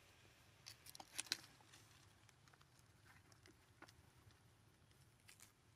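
Faint scattered clicks and crackles, most of them bunched together about a second in: macaques handling and chewing pieces of a green fruit.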